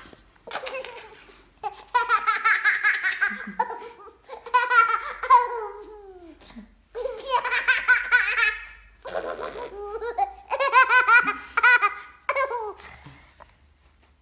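A one-and-a-half-year-old girl laughing hard: about five fits of high-pitched belly laughter, each a second or two of quick bursts, with short breaks between them.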